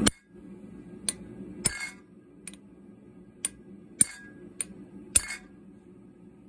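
Light hammer strikes and metal-on-metal clinks on hot steel at a blacksmith's anvil: about nine sharp, irregularly spaced hits, a couple ringing briefly, the loudest about four and five seconds in, over a faint steady low hum.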